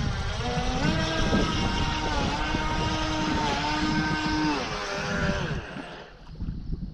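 Radio-controlled boat's motor whining at speed, its pitch stepping up and down with the throttle, then dropping away near the end.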